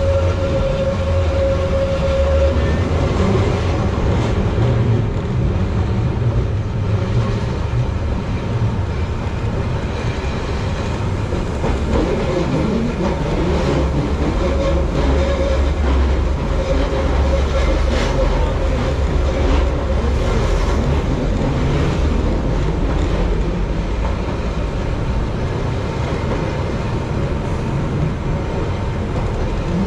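Keihan Ishiyama-Sakamoto Line electric train running on double track, heard from the driver's cab: a steady low rumble of wheels on rail. A faint held whine comes in near the start and again in the middle, and a single sharp click sounds just past the midpoint.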